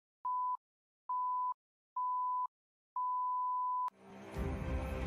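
Film-leader countdown beeps: four short beeps of one pitch, about a second apart, the last held longer. Then a click about four seconds in, and intro music starts.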